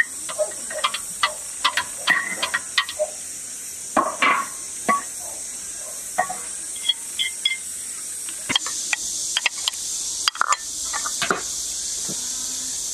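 Chopsticks and a metal tray clinking and knocking against a large wok as meat and beef tripe are slid into the hot pot broth, with a ladle stirring, over a steady high hiss. The clinks stop after about ten seconds and the hiss grows a little louder and fuller.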